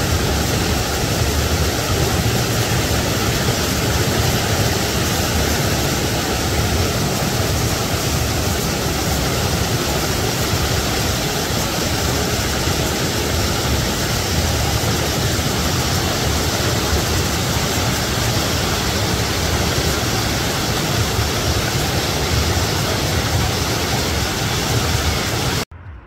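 River water rushing and splashing over rocks in a small cascade, a steady loud rush that cuts off suddenly near the end.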